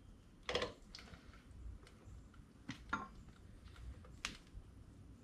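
A few scattered light clicks and knocks from scooter front-wheel and brake parts being handled and fitted together.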